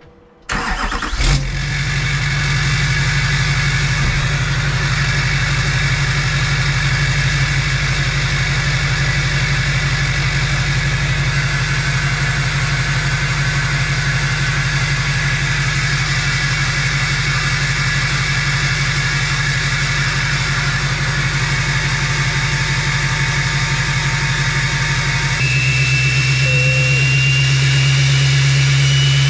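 LBZ Duramax 6.6-litre V8 turbo-diesel starting about half a second in and settling into a steady idle, running on a freshly rebuilt turbo (68 mm compressor wheel, 10-blade turbine) with only a downpipe for exhaust. About 25 seconds in the engine note changes and a thin turbo whistle rises slowly.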